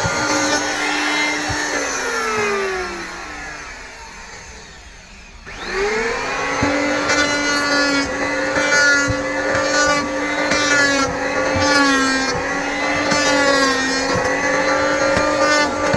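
Electric hand planer's motor running with a steady whine, then winding down with a falling pitch from about two seconds in. It is switched on again about five and a half seconds in, spins up with a rising whine, and runs on with slight dips in pitch.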